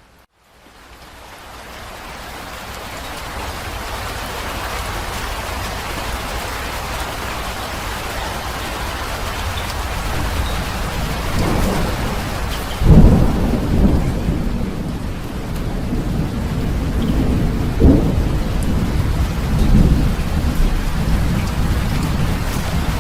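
Steady heavy rain of a thunderstorm that fades in from near silence over the first few seconds. From about halfway through, thunder rumbles several times, the loudest peal coming just past the middle.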